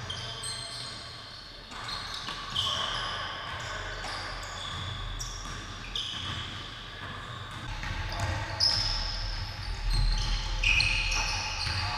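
Basketball game on a hardwood gym floor: sneakers squeaking in short, high chirps as players run, and the ball bouncing, with louder thumps near the end.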